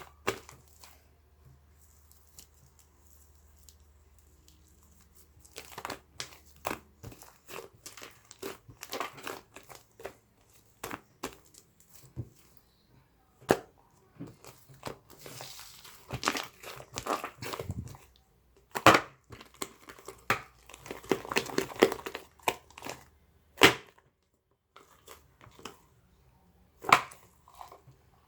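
Irregular crinkling and crackling with many sharp clicks, as of something being crumpled or handled; it starts after a few quiet seconds and is busiest past the middle.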